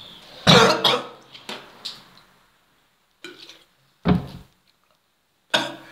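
A young man coughing in short, separate fits, several in a row with pauses between, the loudest about half a second in and another sharp one about four seconds in; the coughing comes from his throat stinging after eating a whole raw onion.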